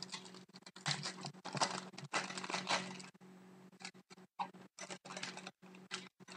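Plastic trading-card packaging crinkling and tearing in irregular bursts as a box of football cards is opened by hand.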